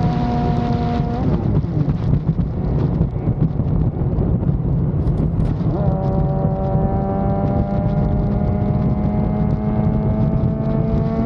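Yamaha FZ6 Fazer 600 motorcycle engine running at road speed under heavy wind rush. The engine note fades out about a second in, leaving mostly wind, then returns near the middle and rises slowly in pitch as the bike accelerates.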